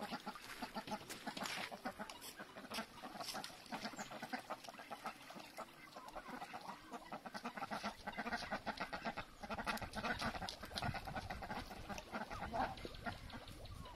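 Domestic ducks quacking and chattering in a run of short, rapid, repeated calls, with a low rumble coming in about halfway through.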